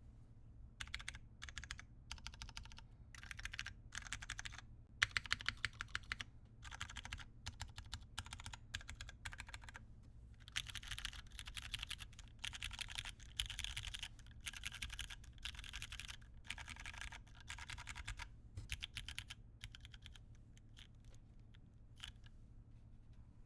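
Typing on a mechanical keyboard with Cherry MX Clear tactile switches, lubed, in an aluminium plate, with GMK keycaps: fast runs of keystrokes in bursts with short pauses, thinning out near the end.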